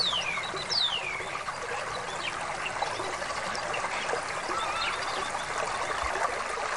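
Stream water running steadily, with birds calling over it: two downward-sliding whistles in the first second, then scattered short chirps.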